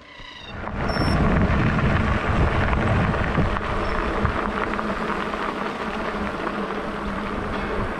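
Wind rumbling and buffeting on a bike-mounted camera's microphone, with tyre noise, as a bicycle rolls fast on a gravel trail; the rumble rises sharply about a second in and then holds.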